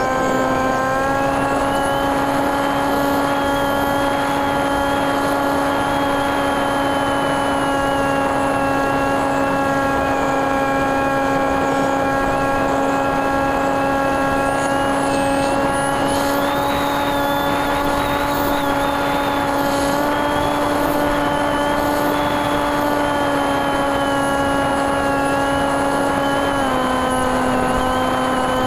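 Brushless NTM 28-26 motor spinning an 8x6 propeller on a TekSumo flying wing, picked up by the onboard camera in flight: a steady buzzing drone with a high whine over a rush of air. Its pitch steps up slightly about a second in and drops a little about two seconds before the end as the throttle changes.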